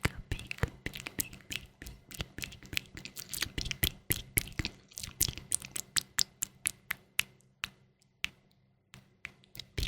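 A close-miked run of sharp ASMR clicks, several a second and irregular, pausing briefly about eight seconds in before starting again.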